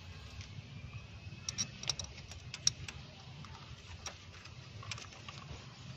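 Light metallic clicks and taps from small parts and tools being handled while fitting an ignition coil into a distributor, bunched about one and a half to three seconds in with a few more later, over a steady low background rumble.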